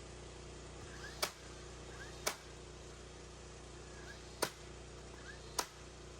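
Four sharp strikes, unevenly spaced about one to two seconds apart, typical of nails being driven in carpentry work. A steady low hum runs underneath.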